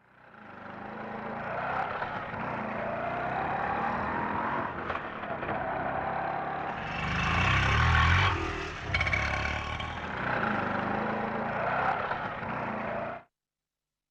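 CNG auto-rickshaw engine running as the rickshaw drives, growing louder about halfway through, then cutting off abruptly near the end.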